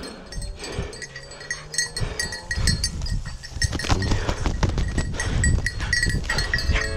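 Handling noise as a dark cock pheasant is picked up from dry grass and lifted, its wings flapping, with crackling and rustling that grows louder about halfway through. A faint high ringing tone comes and goes.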